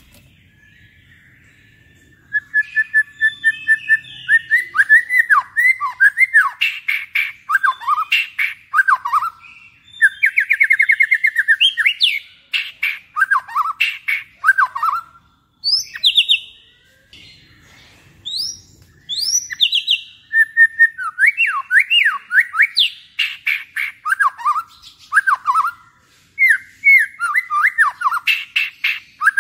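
White-rumped shama (murai batu) singing loud, varied phrases of clear whistles, rapid trills and sweeping notes. The song starts about two seconds in and pauses briefly around the middle.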